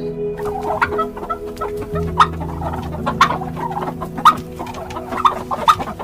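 Several chickens clucking, many short overlapping calls, over background music with long held tones.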